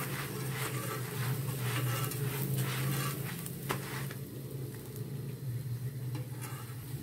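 An oiled paratha frying on a tawa, sizzling, while a spatula scrapes and presses it against the griddle. A sharp click comes just before the middle as it is flipped, and it then fries more quietly, all over a steady low hum.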